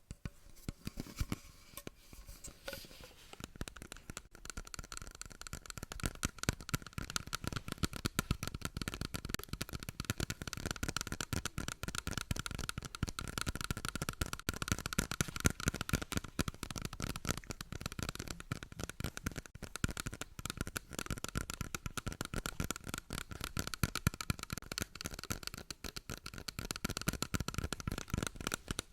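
Close-up ASMR trigger sound: rapid, dense crackling and scratching on some material, sparser at first and then steady.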